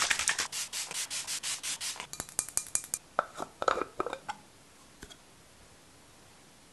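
Skin and hands rubbing close to the microphone, a quick run of rubbing strokes, then scattered clicks and scuffs as skincare bottles and jars are handled. It dies away about four seconds in.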